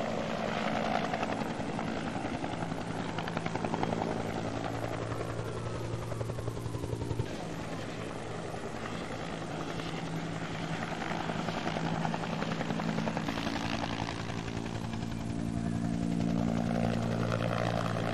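Firefighting helicopter overhead, its rotor beating in a steady rapid chop over a low engine drone.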